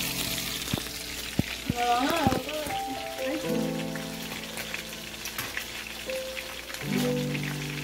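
Water boiling in an aluminium pot of small onions: a steady hiss with many small crackling pops of bubbles, over background music with sustained notes.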